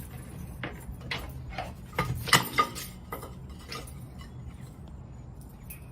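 Scattered light clicks and clatters, a cluster of them about two seconds in, over a steady low hum.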